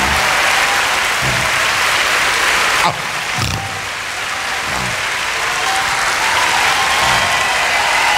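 A theatre audience applauding steadily, with music playing underneath.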